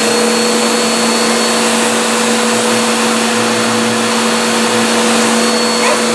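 Full-size household vacuum cleaner running steadily: an even motor hum over a rush of air.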